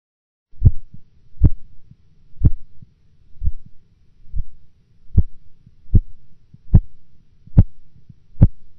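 Korotkoff sounds heard through a stethoscope as the blood-pressure cuff deflates: regular tapping beats a little under once a second. About three and a half seconds in they fade to faint thuds for two beats, then come back clearly: an auscultatory gap, the intermittent loss of the sounds just below the systolic pressure.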